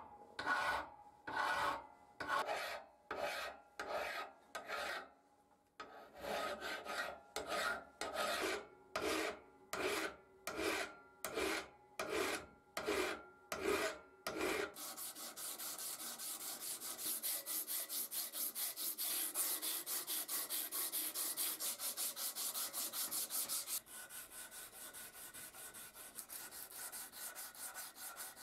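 Hand file rasping across the steel of a pair of pliers, taking rust and scratches off before nickel plating. The slow, even strokes come about one and a half a second, with a brief pause early on. About halfway through they change to a fast run of short scraping strokes, which grows quieter near the end.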